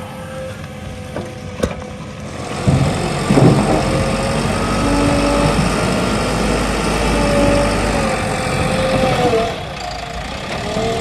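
JCB 3DX Xpert backhoe loader's diesel engine running. It revs up about two and a half seconds in, holds with a whine that shifts in pitch, and eases back near the end.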